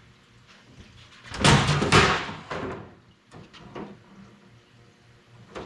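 Shop handling noise: two loud clunks about a second and a half in, as tools or engine parts are moved after honing, followed by a few lighter clicks and taps.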